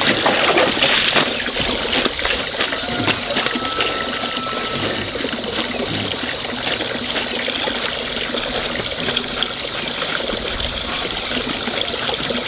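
Running water splashing steadily, with a faint steady high-pitched tone along with it.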